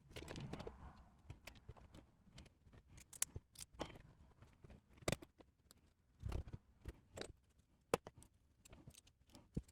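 3D-printed plastic parts of a robot arm's finger mechanism being handled and fitted together: scattered light clicks and taps, with a soft rustle near the start and a duller knock about six seconds in.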